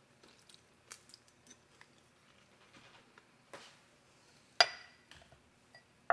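Kitchen handling sounds from a plastic hand-held citrus press and lemon halves being picked up and set down on a countertop cutting board. Small scattered clicks and taps, with one sharper knock about two-thirds of the way through and another right at the end.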